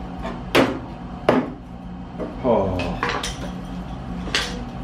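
Metal clinks and scrapes as a steel strip cut out of a car door is levered with a chisel and pulled free: about four sharp clinks, with a short squealing scrape of metal about two and a half seconds in.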